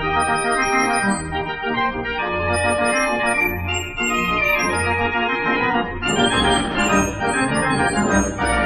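The Great Gavioli, a Dutch barrel organ (street organ), playing a tune from an LP recording: a full melody over bass notes about once a second.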